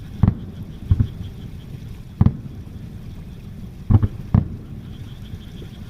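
Fireworks shells bursting overhead: five deep booms, two of them in quick succession near the end, over a low rumble.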